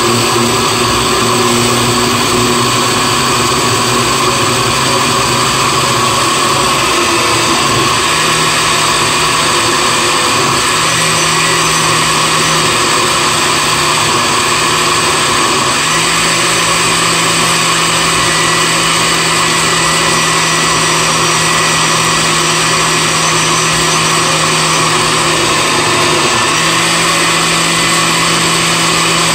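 Oster countertop blender motor running steadily, blending frozen pineapple chunks and oranges with juice in a glass jar. Its hum steps up in pitch a couple of times and dips briefly near the end as the load in the jar shifts.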